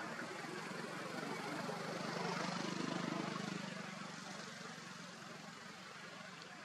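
A vehicle engine going past: a low hum over road noise that swells about two to three seconds in and then fades away.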